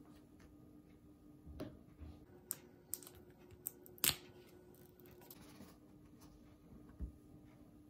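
Hands handling an iPad Air's cardboard retail box and the Apple Pencil box on a wooden table: a scattering of light taps, clicks and rubs, the loudest about four seconds in, over a faint steady hum.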